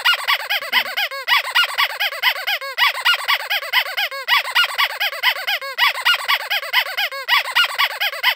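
Squeaky-toy squeaking: a fast, even run of high squeaks, about six a second, each rising and falling in pitch.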